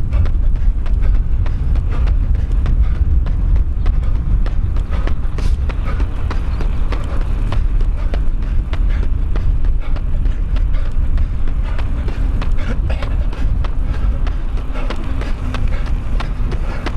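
A runner's quick footfalls during a fast interval, with strong wind buffeting the microphone in a heavy rumble.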